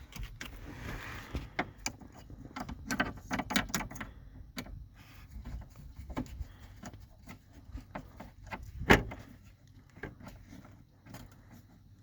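Scattered clicks, clinks and knocks of hand tools and metal parts being handled while a hood latch cable is fitted, with a quick run of clicks about three seconds in and one louder knock about nine seconds in.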